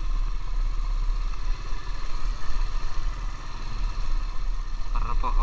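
Motorcycle engine running steadily as the bike is ridden along a bumpy dirt track.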